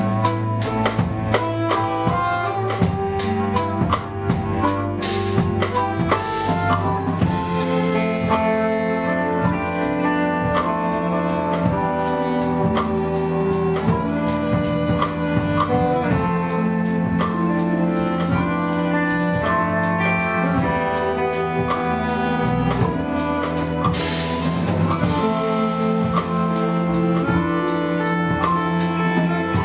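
Live ensemble music: a drum kit keeping a steady beat under saxophone, organ and bass lines, with two washes of cymbal, about five seconds in and again near the end.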